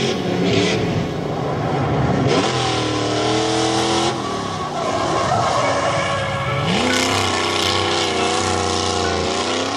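Drift car's engine revving hard and wavering in pitch as it slides through a turn, with a sharp rev-up about seven seconds in, over the hiss of its tyres scrubbing sideways across the asphalt.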